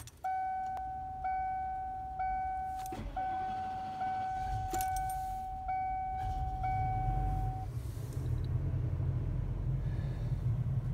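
Dashboard warning chime ringing about once a second while a Ford Triton 6.8-litre V10 is cold-started. A few seconds in, the engine cranks and catches, then settles into a steady low idle as the chime stops.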